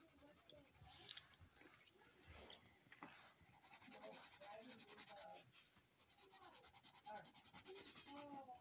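Faint scratching of a colored pencil rubbing back and forth on coloring-book paper.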